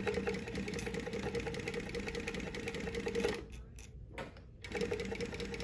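New-Tech GC-0303D walking-foot industrial sewing machine, with a direct-drive motor, running steadily as it stitches a seam through folded twill fabric. It stops for about a second roughly three and a half seconds in, then starts stitching again near the end.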